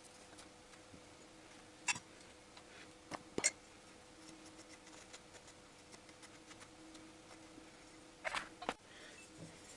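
Sparse light clicks and clinks of metal camshaft bearing caps and tools being handled and set down on a workbench: one about two seconds in, two close together a little after three seconds, and a short cluster near the end. A faint steady hum lies underneath.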